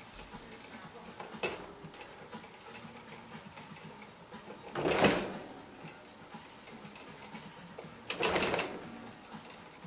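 Dry hay rustling as cats nose into a bucketful of it: a few light clicks, then two louder rustles, one about halfway through and a longer one near the end.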